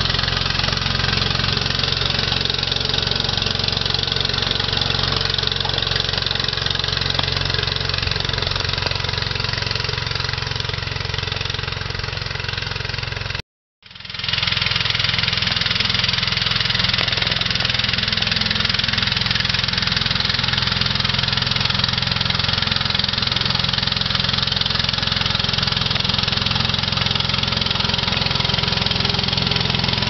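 Steady engine running from a 7¼-inch gauge miniature locomotive propelling a snow plough through fresh snow. The sound cuts out briefly about halfway through, then carries on just as steady.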